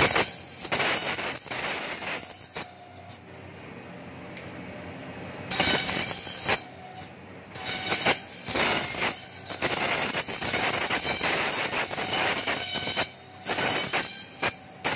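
Satay-skewer slicer and planer machine running while bamboo strips are fed through its rollers and cutters: an irregular rasping and rattling as the blades shave the bamboo. The noise drops for a few seconds early on and picks up again at about five and a half seconds when more strips go through.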